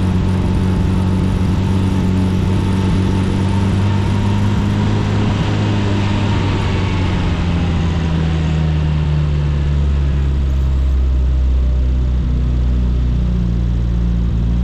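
Classic Mini's A-series four-cylinder engine running as the car rolls slowly. The engine note falls about halfway through and settles into a lower, steady note.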